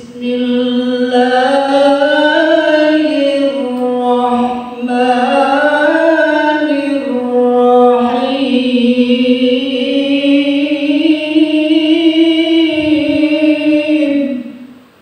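A man's voice chanting a melodic Islamic recitation into a handheld microphone. He sings three long, ornamented phrases with wavering held notes and two short pauses for breath, the last phrase fading out near the end.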